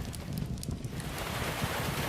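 Fireplace crackling over steady rain, with a few sharp pops from the fire and a low rumble underneath. The rain's high hiss thins for about the first second, then comes back.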